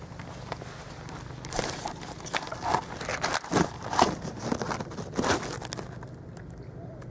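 Close rustling and crackling of dry leaves and twigs, with bumps of the camera being handled and set down in brush, over a steady low hum. It calms after about six seconds.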